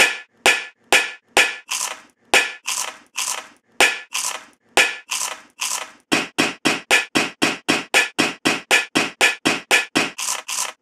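Metal kitchen pots, lids and utensils clanking in a steady beat, each strike ringing briefly. The strikes come about two a second, then quicken to about four a second around six seconds in.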